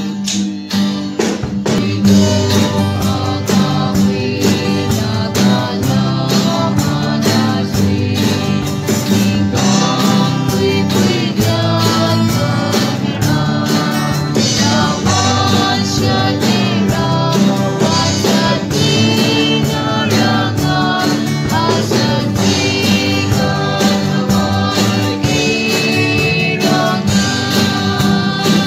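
A family band's song recorded on a mobile phone: voices singing over strummed and plucked guitar, bass guitar and drum kit.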